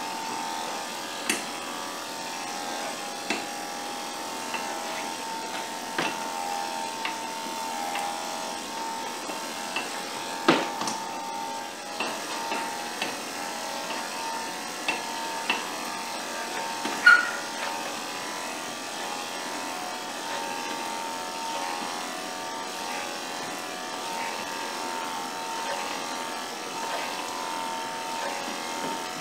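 Electric dog-grooming clippers running with a steady buzz as they trim a puppy's curly coat, with scattered short clicks along the way.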